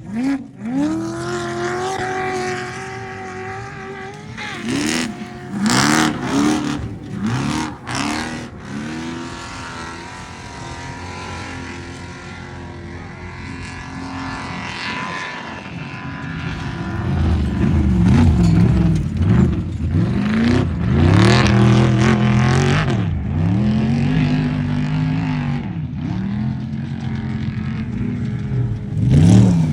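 Off-road race truck engines revving hard, the pitch rising and falling over and over as the throttle is worked. The engines are quieter through the first half, then much louder and closer from a little past halfway, with quick repeated revs.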